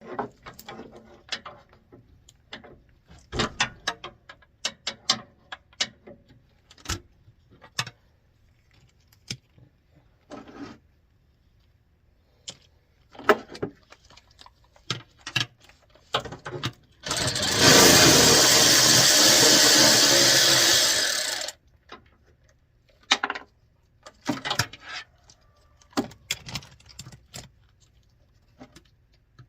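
Scattered clinks and knocks of hand tools and metal parts. About 17 s in, a loud steady rushing noise runs for about four seconds, then cuts off.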